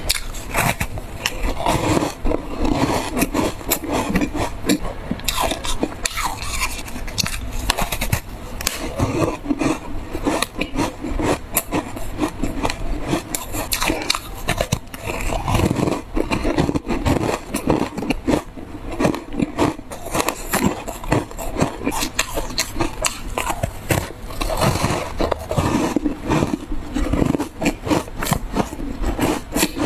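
Close-miked biting and chewing of frozen buckwheat-powder ice: crisp cracks and gritty crunching in quick, continuous succession.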